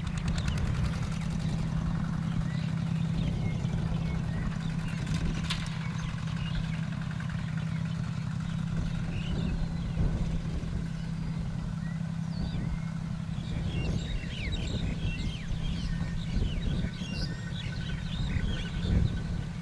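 Engine of a two-wheel walking tractor with cage wheels running steadily under load while it works the soil. Small birds chirp now and then from about halfway through, more often near the end.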